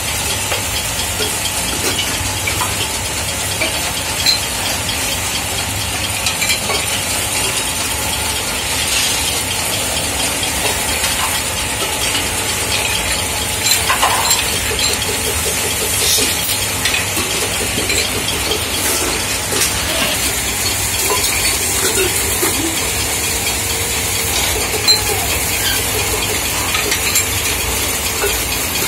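Belt-driven metal-spinning lathes running, with a hand-held spinning tool pressed and rubbing against aluminium pot blanks as they turn: a steady mechanical clatter and hiss with scattered clicks and a brief squeal about halfway through.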